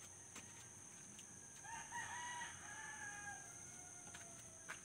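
A rooster crowing once: a single long call starting a little over a second in, held for about three seconds and tailing off toward the end.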